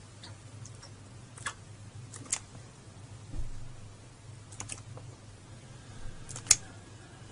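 A few scattered sharp clicks and taps over a low steady hum, the loudest click near the end, with a soft dull thump about halfway through.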